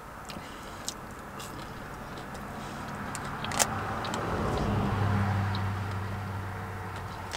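A motor vehicle passing the parked car, heard from inside the cabin: an engine hum swells about halfway through and fades near the end. Small scattered clicks of chewing sit over it.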